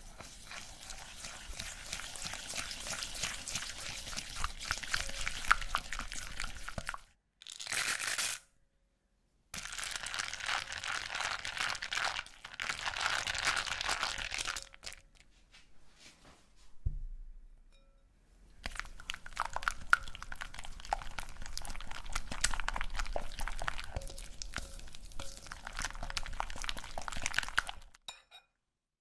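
Silicone whisk stirring thick cocoa paste and then melting chocolate in a glass bowl: rapid scraping and clicking against the glass, in three long stretches with short breaks between them.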